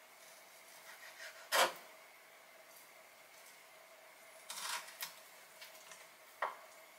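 Kitchen knife cutting raw tuna on a cutting board: a sharp knock of the blade on the board about a second and a half in, a short scraping stroke around four and a half seconds, and a few lighter taps, over a faint steady hum.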